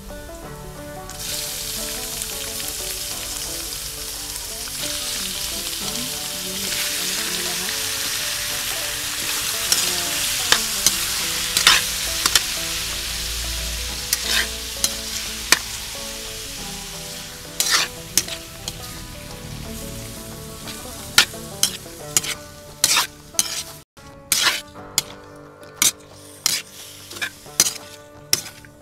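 Chicken pieces frying in hot pork lard with garlic, onion and ginger: a loud sizzle that starts about a second in as the chicken goes into the pan. The pieces are stirred with a utensil that scrapes and clicks against the pan; toward the end the sizzle dies down and the clicks come more often.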